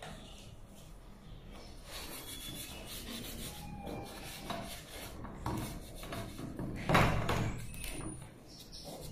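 Hands handling the hard plastic base of a fibre optic splice closure and its cables: irregular rubbing, scraping and small knocks of plastic parts, with one louder knock late on.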